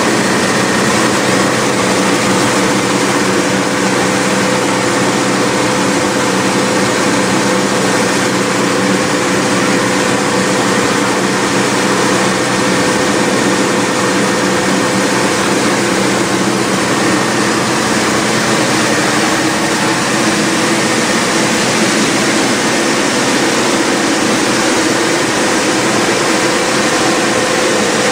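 Black-bean optical color sorter line running: a steady, loud mechanical din with constant hum tones under a dense hiss, as beans stream down its sheet-metal chutes.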